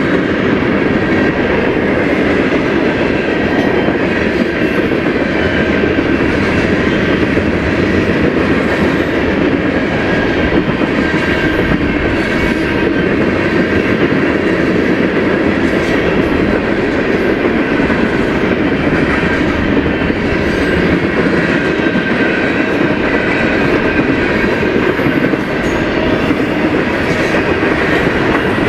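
Freight cars (gondolas, then tank cars and covered hoppers) of a mixed freight train rolling steadily past: a continuous loud rumble with the clickety-clack of wheels over the rail joints.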